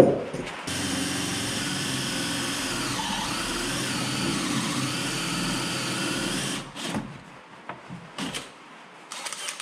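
Cordless drill running a Diablo carbide hole saw through a wooden wall stud, a steady cutting sound for about six seconds that then stops. A few scattered knocks follow near the end.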